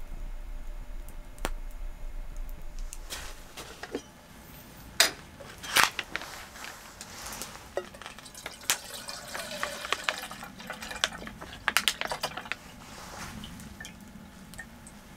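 Liquid poured from a squeezed spouted pouch into a small metal camping kettle. Several sharp clinks and knocks of metal cookware being handled come in between.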